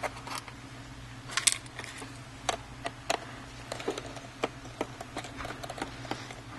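Screwdriver backing out the bottom-case screws of a 2009 MacBook Pro: irregular light clicks and ticks, over a steady low hum.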